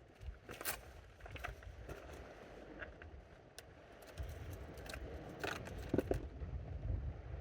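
Wind rumbling on the microphone, stronger from about four seconds in, with scattered small clicks and scrapes of fishing tackle and bait being handled close by.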